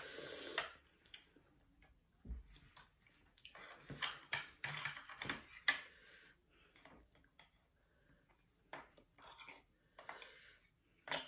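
Close-up eating of raw oysters: scattered wet chewing and mouth sounds, with light clicks of a spoon and chopsticks against the shells and the sauce bowl.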